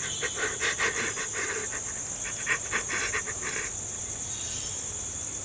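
A man panting and gasping in fright, a quick run of breathy huffs for about three and a half seconds before it dies away. Steady high cricket chirring runs underneath.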